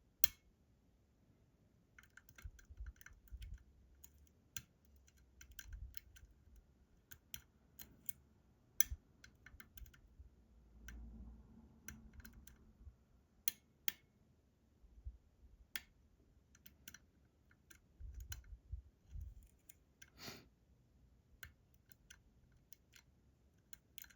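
Lock pick and tension tool working the pins and sidebar of a Robur 2391 lock: irregular small metallic clicks and ticks, with soft handling bumps and a brief scrape about twenty seconds in.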